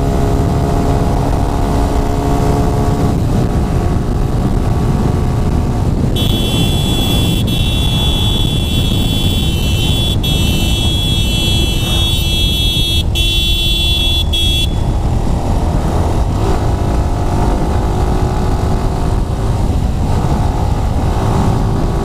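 Motorcycle running at road speed, its engine under heavy wind rush on the microphone. In the middle, a high, shrill, steady sound comes in for about eight seconds and cuts off suddenly.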